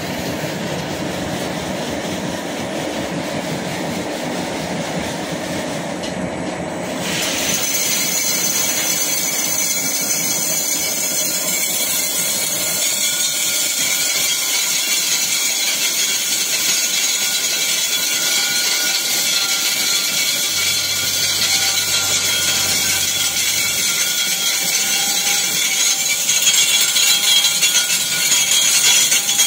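Wet mix macadam plant's aggregate feeder and belt conveyor running, a steady mechanical noise. About seven seconds in it turns louder and harsher, with a hissing rattle as stone and dust pour out of the bins onto the belt.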